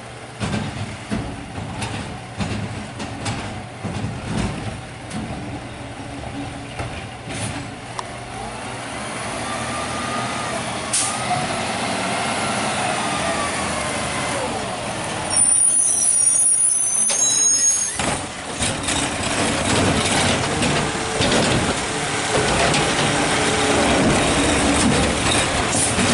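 Peterbilt 520 garbage truck driving up, its engine growing louder as it nears, then a loud, high air-brake squeal for about two seconds as it stops, followed by the engine running at a standstill.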